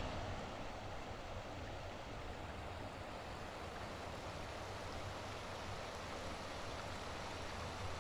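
Steady, even rushing outdoor ambience with no distinct events.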